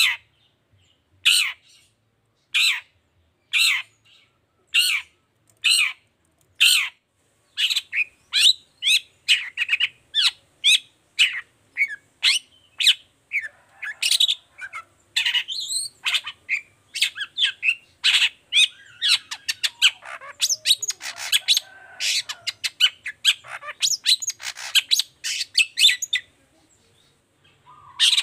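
Long-tailed shrike (cendet) calling: short 'toet' notes spaced about a second apart, then from about seven seconds in a fast, dense run of calls. The calls break off briefly near the end and start again.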